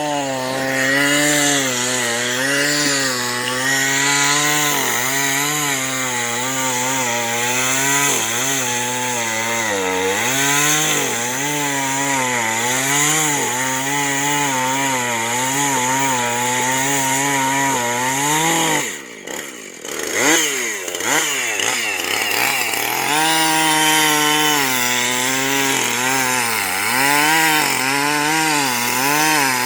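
Husqvarna two-stroke chainsaw running at full throttle, cutting into the trunk of a standing red pine; its pitch wavers up and down under load. About nineteen seconds in, the engine drops off briefly, then revs back up into the cut.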